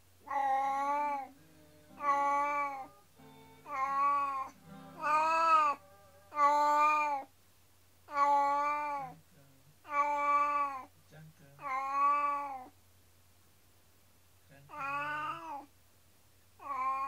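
Domestic cat meowing over and over, long drawn-out plaintive meows of about a second each, one every one to two seconds with a brief pause near the end. These are the distressed cries of a cat left alone while its companion cat is away for surgery.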